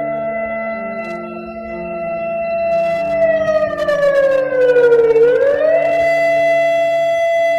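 Emergency-alert siren tone holding one steady pitch. About three seconds in it falls slowly for two seconds, then sweeps quickly back up and holds again, over low sustained notes that change pitch now and then.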